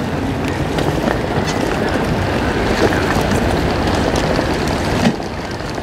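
Vaporetto water bus under way on the canal: steady engine rumble and water wash, with wind buffeting the microphone. A brief knock comes about five seconds in, after which the noise is a little quieter.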